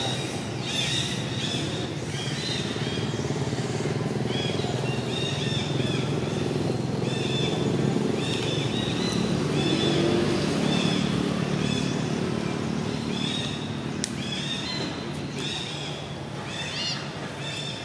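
Baby long-tailed macaque giving repeated short, high squealing calls in quick little runs while clinging to another monkey. A low rumble runs underneath, loudest about halfway through.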